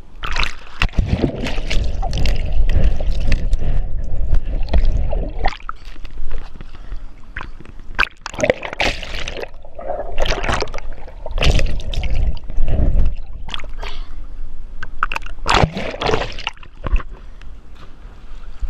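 Water sloshing and splashing close to the microphone in loud, irregular surges with a heavy low rumble.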